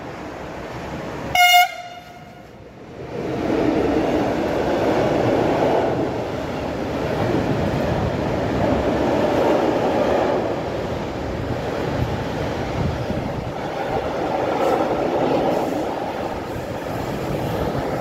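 One short, high train horn blast about a second and a half in, then a train rolling past close by, its wheels rumbling steadily over the rails; the train includes a long string of tank wagons.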